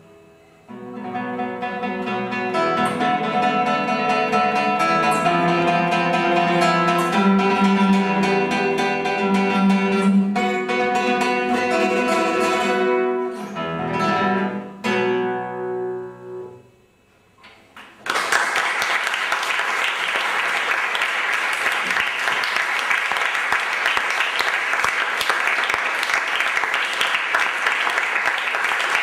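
Classical guitar played solo, the piece closing about 17 seconds in on final notes that die away. The audience then applauds steadily.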